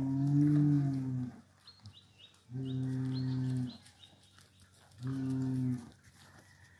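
A bull lowing three times: deep, drawn-out moos of about a second each, the last one the shortest.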